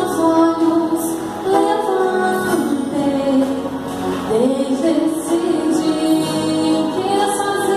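A woman singing a worship song, held sung notes amplified through a church sound system.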